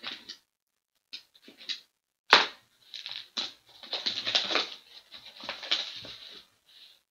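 Shrink wrap and packaging on a sealed box of Upper Deck Splendor hockey cards being torn and handled, in irregular crinkling rustles with a sharp tear about two seconds in.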